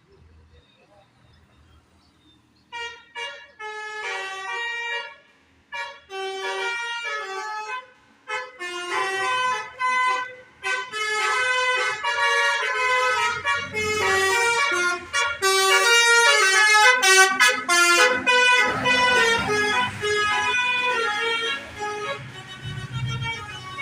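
Bus telolet horn: a set of musical air horns playing a fast, stepping tune of short notes. It starts a few seconds in and runs almost without a break. A low rumble joins underneath near the end.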